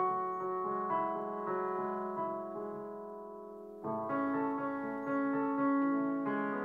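Digital piano played in sustained chords: the notes ring and slowly die away until, just before four seconds in, a new chord is struck and the playing moves on.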